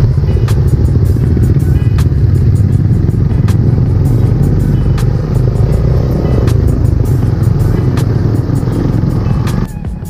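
Motorcycle riding noise: steady, loud engine and wind rumble on the rider's microphone, with music playing over it. It drops away just before the end.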